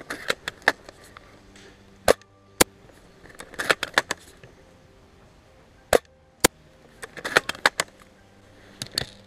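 Sharp snapping shots from a Tokyo Marui VSR-10 G-Spec spring bolt-action airsoft sniper rifle: two pairs of single cracks about half a second apart, a third of the way and two thirds of the way in, with clusters of quicker clicks and rattles in between.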